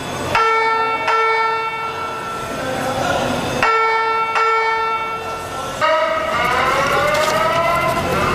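Building fire alarm sounding: two pairs of electronic chime tones, each struck and ringing out, then from about six seconds in the slow rising whoop tone starts again.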